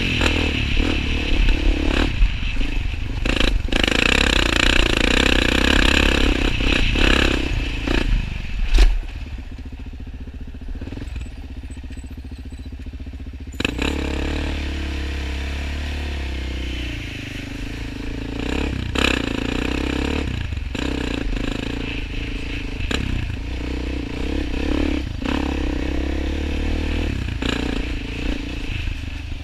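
Suzuki LTZ 400 quad's single-cylinder four-stroke engine running under throttle on a bumpy dirt track, louder for the first several seconds, easing off about nine seconds in and picking back up near fourteen seconds. Scattered knocks and clatter from the quad going over bumps.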